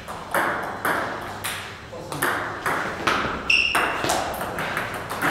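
Table tennis rally: a celluloid ball clicking off bats and the table, about two sharp, echoing hits a second. A brief high squeak comes about three and a half seconds in.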